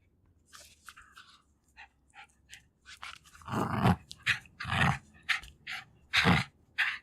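Jack Russell Terrier making short sniffs and breaths, then growling in a string of short, louder bursts from about three and a half seconds in, as it fights over a toy.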